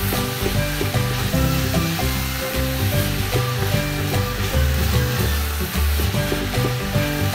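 Diced celery and onion sizzling as they sauté in a stainless steel pot, stirred with a wooden spoon, under background instrumental music.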